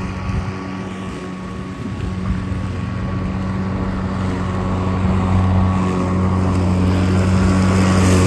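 Battery-powered push lawn mower running: a steady motor-and-blade hum that grows gradually louder.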